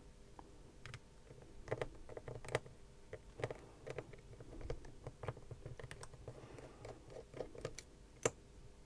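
Faint, irregular small clicks and taps of a precision screwdriver undoing the tiny screws of an iPod Touch's inner metal plate, with one sharper click near the end.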